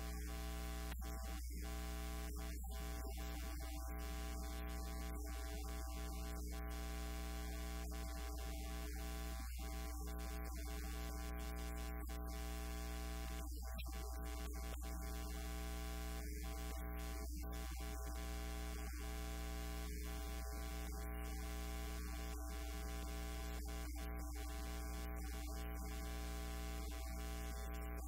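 Steady electrical hum from a faulty audio feed: a low drone with a stack of constant higher tones above it, unchanging in pitch and level throughout.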